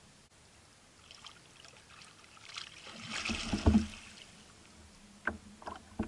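Water splashing and sloshing at a kayak, building to a peak with a couple of heavy low thumps a little past the middle, then three sharp knocks near the end.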